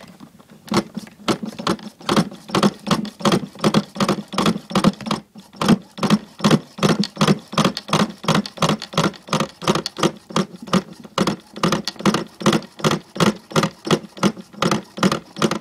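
Small RC nitro boat engine being cranked over and over in a quick, even rhythm of about three strokes a second without firing: it will not start, a fault the owner suspects is a blocked fuel line.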